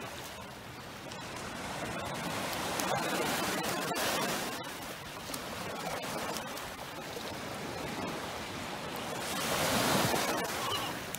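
Small waves breaking and washing up a sandy beach: a steady surf hiss that swells and eases with each wave, loudest near the end.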